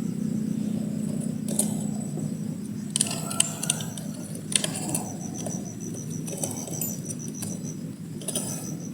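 An insect trilling steadily at a high pitch, with intermittent rustling and clinking from handling or walking through vegetation, the clinks clustered around the middle.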